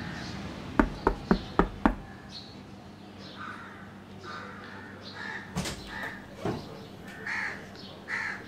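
Five quick knocks on a door, about a second in, followed by crows cawing several times. Two more knocks come near the middle.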